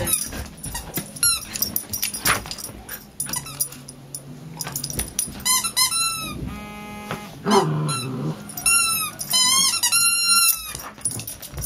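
Squeaky dog toy squeaking in short quick bursts as a beagle puppy chews on it, several times over.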